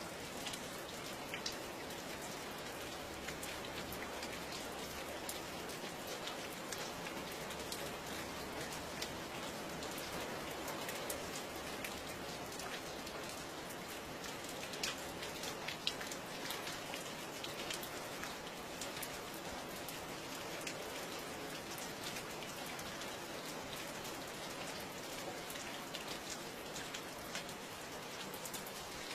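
Steady rain falling, with a dense hiss and scattered individual drops ticking sharply on a hard surface, a few louder drips now and then.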